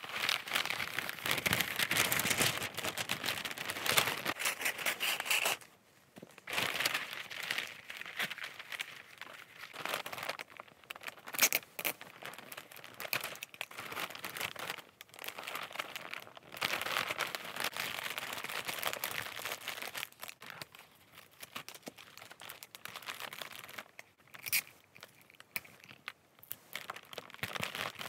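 Gift-wrapping paper crinkling and rustling in irregular bursts as it is folded and handled, with a few short sharp rips of sticky tape.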